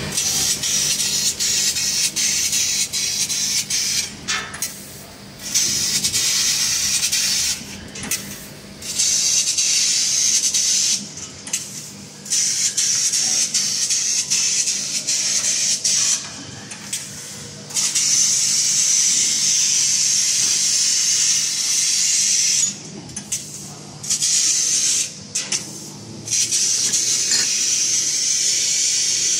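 Fiber laser cutting machine (3 kW) cutting steel sheet: a loud, steady hiss of the assist-gas jet and cut at the nozzle, breaking off for about a second several times as the head moves between cuts, over a faint low machine hum.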